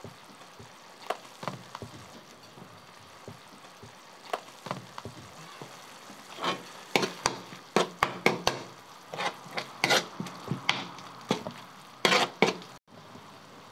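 Large metal spoon scraping and clacking against a wide steel tantuni pan as ground meat is stirred through its tomato juices, over a steady sizzle of frying meat. The scrapes come thick and fast from about halfway through.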